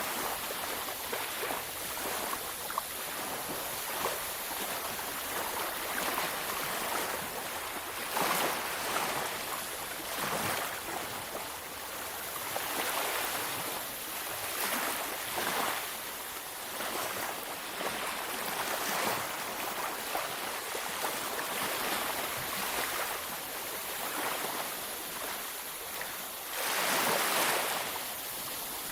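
Ocean waves washing onto a beach: a continuous surf hiss that swells and ebbs every few seconds, with a bigger wave breaking about eight seconds in and another, the loudest, near the end.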